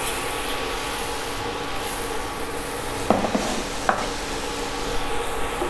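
Garlic and shallot paste sizzling in hot oil in a nonstick frying pan, being sautéed until fragrant, stirred with a wooden spatula. A steady sizzle, with a couple of short knocks about three and four seconds in.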